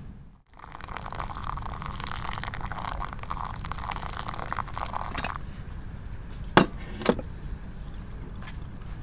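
Hot water poured from a metal pot onto coffee grounds in a paper-filter pour-over dripper: a steady splashing trickle lasting about five seconds, which stops abruptly. A second or so later come two sharp knocks about half a second apart as the pot is set down.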